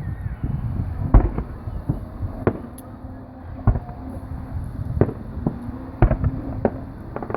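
Aerial fireworks going off, a string of sharp bangs about once a second over a steady low rumble.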